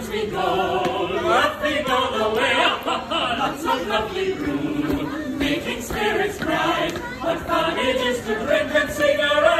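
A group of voices singing together as a choir.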